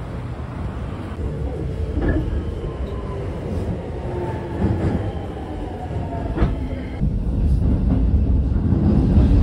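Electric train running, its motor whine sliding down in pitch as it slows, then a Keikyu commuter train passing close by with a heavy low rumble and wheel clatter.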